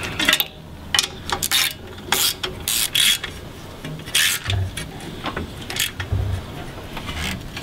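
Socket ratchet wrench clicking in irregular runs as it is swung back and forth, tightening a bolt on the car's front suspension, with a few dull knocks of the tool against the parts.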